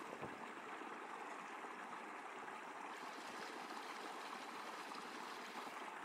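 A small creek running, a steady sound of flowing water.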